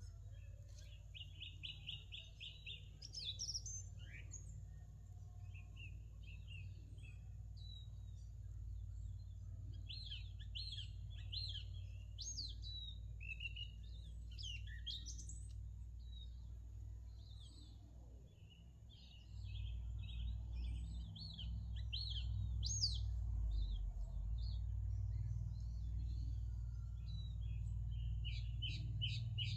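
Several songbirds chirping and trilling in short, repeated phrases. Underneath is a steady low rumble that gets louder about two-thirds of the way through.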